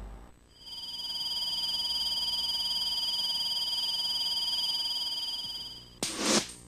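A steady high electronic tone, two pitches held together with a slight warble, lasting about five seconds under a TV network's logo ident. It stops about six seconds in, and a sudden loud burst opens the theme music, followed by sharp struck notes.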